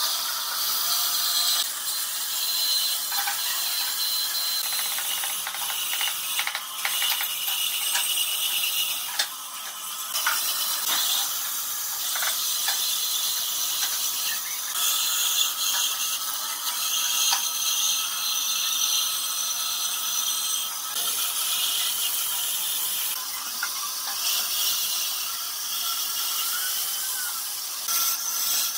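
Bandsaw cutting a thick pine board along a curved line: a steady high-pitched hiss and whine from the blade in the wood, with occasional short ticks.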